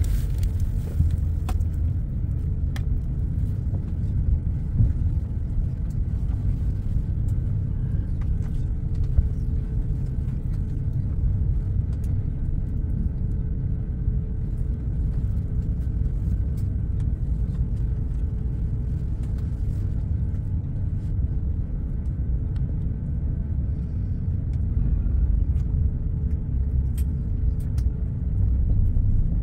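Airbus A350-900 taxiing, heard from inside the cabin: a steady low rumble of the Rolls-Royce Trent XWB engines at idle and the wheels rolling over the taxiway, with a faint steady hum and occasional small clicks.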